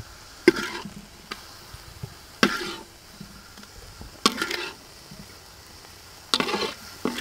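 Chili sauce ladled over fried meatballs and mushrooms in a hot steel tray. Each ladleful sizzles sharply and fades within about half a second, four times roughly two seconds apart, over a faint steady sizzle.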